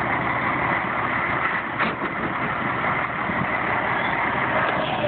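Tractor-trailer's diesel engine running steadily at low revs close by, with a brief click about two seconds in.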